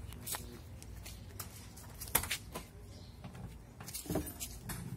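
Scattered clicks and knocks of a car door being opened, the sharpest click about two seconds in.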